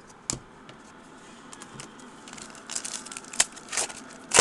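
Trading cards being handled and flipped through by hand: soft scattered rustles and light clicks, with a sharper snap about three and a half seconds in and another near the end.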